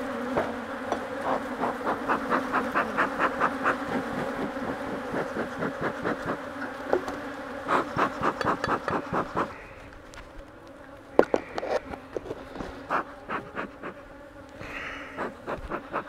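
Agitated honey bees buzzing around an open hive in a steady hum, the sound of a hive acting queenless and defensive. Over it a bee smoker's bellows is pumped in quick runs of about four puffs a second.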